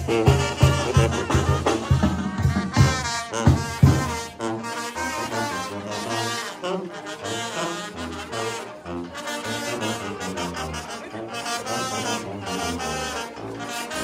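Oaxacan brass band (banda) playing dance music. A strong, steady drum beat drops out about four seconds in, leaving the brass melody over a low brass bass line.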